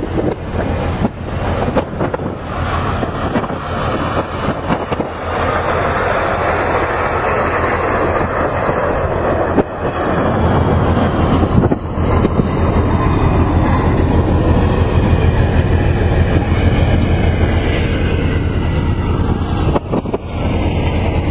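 Heavy machinery running with a steady loud rumble and a fast rhythmic clatter, dipping briefly about ten seconds in and again near the end.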